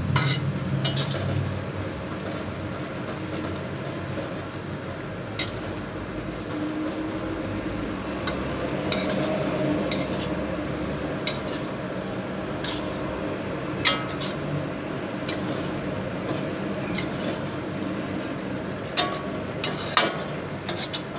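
A metal spatula stirring and scooping udon noodles and vegetables in a wok, with scattered sharp clinks as it strikes the wok, over a steady background hiss.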